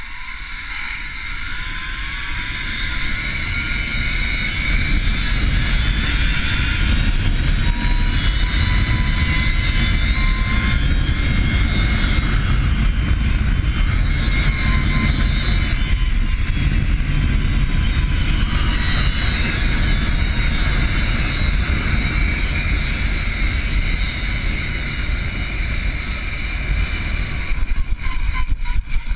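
Zipline trolley pulleys whirring along the steel cable at speed, with heavy wind buffeting on the microphone. The sound builds over the first few seconds as the ride picks up speed, holds steady, then turns into a run of sharp knocks near the end as the trolley nears the landing platform.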